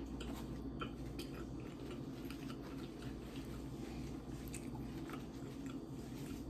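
Close-up chewing and mouth sounds of someone eating: scattered small wet clicks over a steady low hum.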